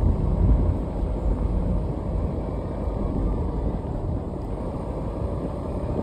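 A car being driven: a steady low rumble of engine and road noise.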